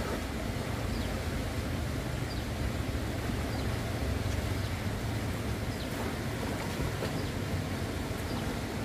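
Steady rushing of a swollen river in flood, fast brown water running past the bank, with faint short high chirps about once a second.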